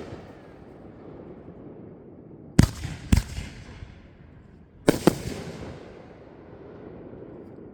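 Fireworks exploding: two pairs of sharp bangs about two seconds apart, the second bang of each pair coming a fraction of a second after the first, each followed by a rumbling echo that fades away.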